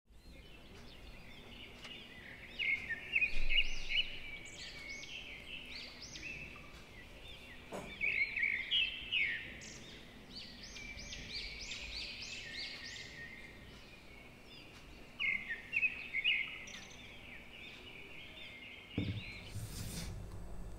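Small songbird chirping in three bursts of quick rising and falling notes over a faint hiss. Near the end there is a knock on a wooden cutting board as a carrot is laid down.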